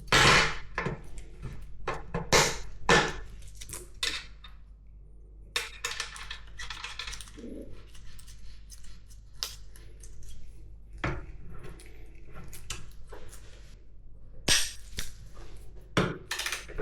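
Metal parts and hand tools clinking and knocking as they are handled, in irregular single strikes with a few short scraping stretches.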